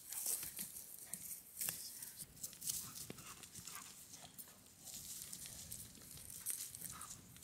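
Wood fire burning inside a hollowed rotting log, crackling and popping with many sharp irregular snaps over a steady hiss as it draws up through the log.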